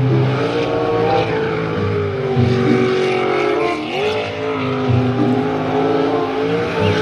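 V8 jet sprint boat engine running at high revs while racing, the pitch wavering and briefly dipping then climbing again about four seconds in as the boat throttles through the turns.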